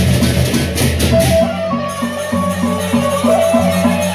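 Lombok gendang beleq ensemble playing: large barrel drums with cymbals. About a second and a half in, the dense drumming settles into a quick, steady beat with sustained high melodic notes above it.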